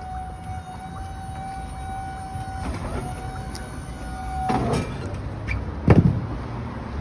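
Box truck's powered liftgate running, a steady electric motor whine that stops about four and a half seconds in, followed by a loud thump about six seconds in.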